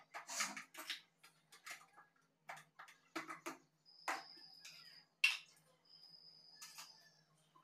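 Light clicks and knocks of kitchen items being handled and set down on a counter, several sharp taps in quick succession. A thin high tone comes and goes in the second half, over a faint low hum.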